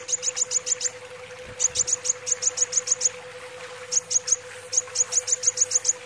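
Caged kolibri wulung sunbird calling in fast runs of sharp, high chips, about seven a second, in four groups with short pauses between them. A steady faint hum runs underneath.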